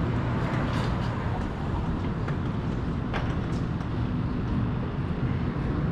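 Steady low rumble of a running car, with a few faint ticks.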